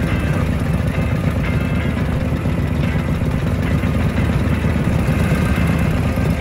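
Vintage Harley-Davidson V-twin chopper engines idling at a standstill, a steady, low, uneven rumble.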